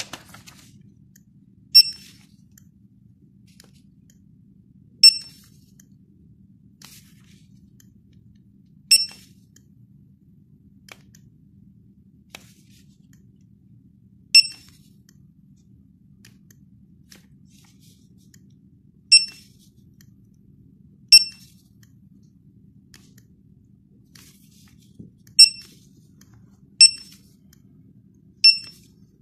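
Handheld barcode scanner giving short, high-pitched good-read beeps, nine in all at irregular intervals, each one marking a successfully decoded code. A faint steady low hum runs underneath.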